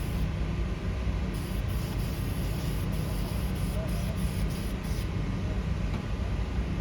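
Steady low mechanical hum of a running machine, with a faint high hiss that comes and goes in the first few seconds.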